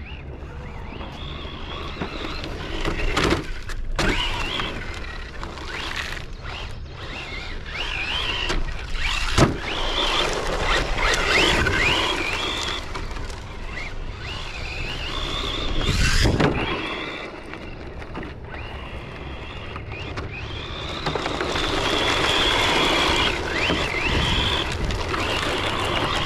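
Electric 1/8-scale RC rally car driving on dirt: its electric motor whines up and down with the throttle over a low rumble of tyres on loose ground. A few sharp knocks come through, the loudest about nine seconds in.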